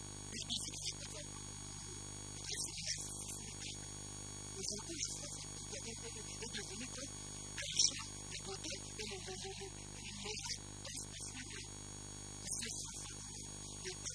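Steady electrical mains hum, with a man talking in short stretches over it.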